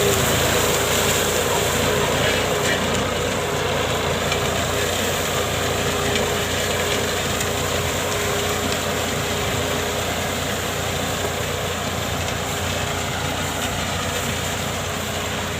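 John Deere 5050D tractor's diesel engine running steadily under load while plowing, a constant drone with a steady whine.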